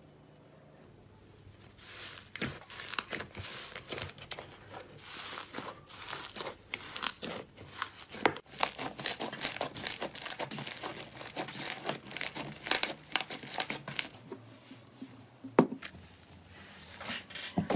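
Slime being squeezed and stretched by hand, giving a dense run of crackling, crinkling pops that starts about two seconds in, pauses near the end and is broken by one sharp snap.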